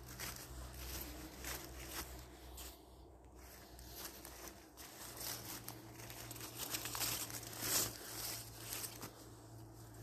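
Irregular footsteps and rustling through leaf litter and undergrowth in woodland.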